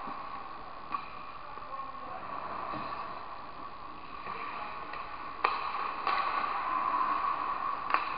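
Indoor ice hockey play: skates scraping on the ice over a steady hum, with sharp clacks of sticks and puck, about a second in, twice around five and six seconds, and once near the end.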